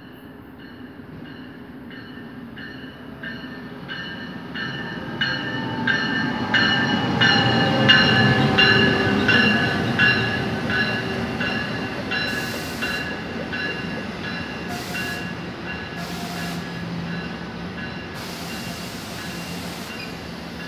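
An NJ Transit ALP-46A electric locomotive pulls a double-deck commuter train into the station. A bell rings steadily about twice a second while the rumble of the locomotive and cars swells to a peak as they pass. Several short bursts of hiss follow as the train slows.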